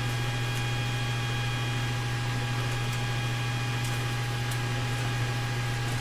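Steady electrical mains hum with an even hiss and a faint high steady whine, unchanging throughout; the soldering itself makes no audible sound.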